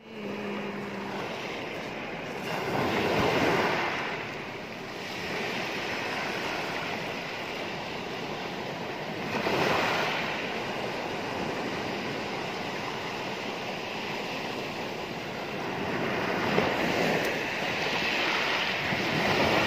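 Sea waves breaking and washing up a pebble beach. The surf swells and fades, loudest about three seconds in, again about ten seconds in, and near the end.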